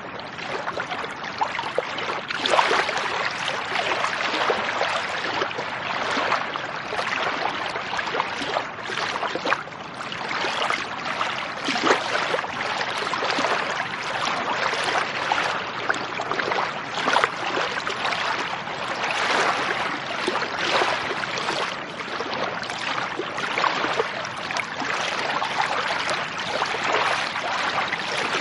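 Lake water lapping and splashing without a break: a continuous wash with many small, irregular splashes.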